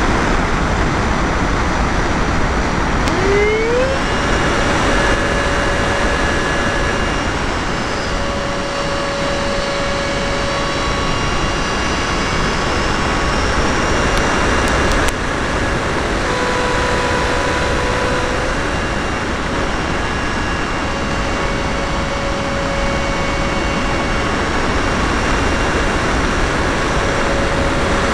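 Onboard audio of an R/C model F-16 in flight: a steady rush of air over the microphone with the model's motor whine on top. The whine glides up in pitch about three to four seconds in, then holds, shifting between a few pitches now and then.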